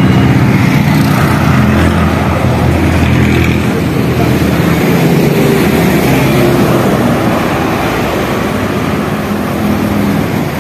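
Road traffic: motor vehicles passing close by, over a steady low engine hum that eases slightly after the first few seconds.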